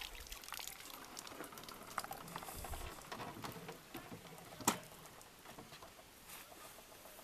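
Water draining and dripping from a landing net just lifted out of the lake with a carp in it, a quick patter of drops that thins out after a few seconds. A single sharp knock about four and a half seconds in.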